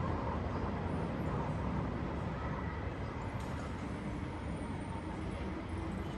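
Steady outdoor urban background din with no distinct events standing out.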